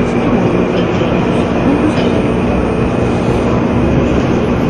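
Steady, loud rumbling background noise of a large terminal hall, with no single clear source standing out.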